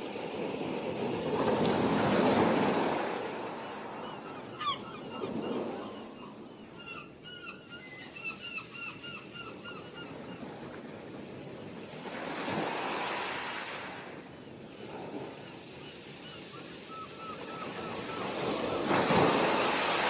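Ocean waves breaking in slow surges, each one swelling up and falling away, the loudest a couple of seconds in and just before the end. Gulls call in runs of short repeated cries through the middle and again near the end.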